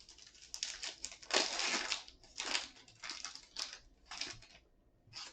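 Trading card pack wrapper being torn open and crinkled: a series of short rustling bursts, the longest and loudest about a second in.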